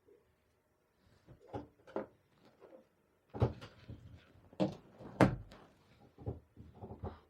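A string of light knocks and clicks from small hard objects being handled and set down on a tabletop, with the sharpest knocks about three and a half, four and a half and five seconds in.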